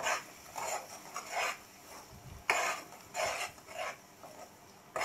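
Spatula scraping round a pan while stirring a thick ground masala paste: a series of irregular scraping strokes, about one or two a second, the loudest about two and a half seconds in.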